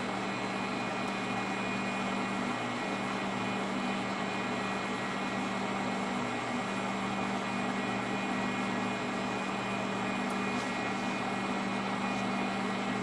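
Pentium Pro desktop PC running through its boot: cooling fans and SCSI hard drive making a steady whir with a low hum.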